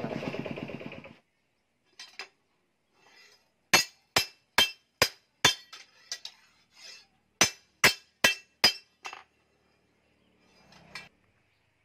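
Steel hammer striking a blade forged from a chainsaw bar on a steel post anvil: sharp, ringing metallic clinks, a run of five blows about two a second, a short pause, then four more. An engine-like hum cuts off about a second in.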